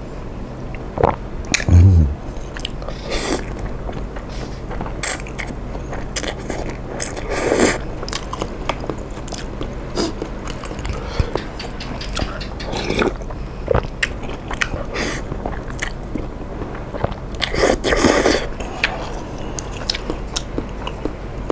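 A person eating seafood tom yum instant noodles close to the microphone: irregular chewing and biting with wet mouth clicks, and a few louder moist smacks about 2, 7 and 18 seconds in.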